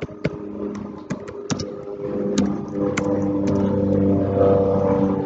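Airplane flying over: a steady engine drone that swells louder from about two seconds in. Scattered computer keyboard clicks sound over it.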